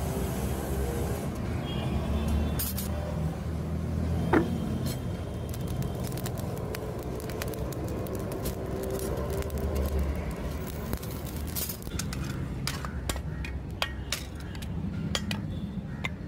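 Forge air blower running steadily, feeding the charcoal fire, with scattered light clinks of metal and a sharper click about four seconds in.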